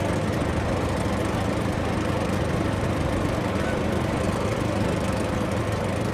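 A small engine running steadily, without pause or change in pitch.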